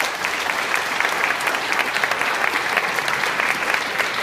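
Audience applauding steadily, a dense patter of many hands clapping, for a place winner being called to the stage.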